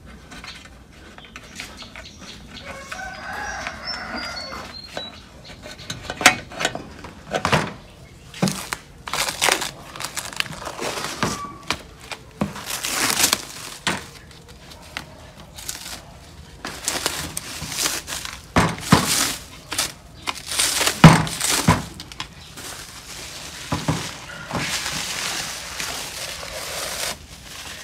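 Plastic protective film being peeled off an LCD panel and crumpled by hand: a long run of irregular crackling, rustling bursts, loudest about three quarters of the way through. A rooster crows once about three seconds in.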